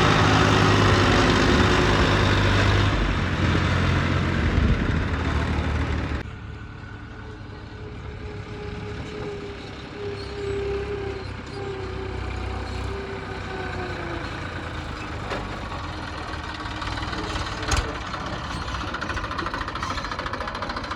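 Heavy diesel engine running loudly with a steady low hum, then dropping suddenly about six seconds in to a quieter engine sound with a faint whine over it. There is one short click near the end.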